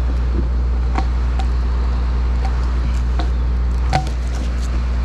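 An engine runs at a steady low idle, with a few short sharp cracks over it, the loudest about four seconds in.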